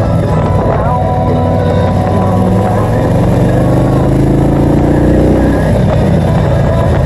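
Touring motorcycle's engine running while the bike rides along a winding road; about halfway through the revs climb for a couple of seconds, then drop away suddenly, as at a gear change or the throttle closing.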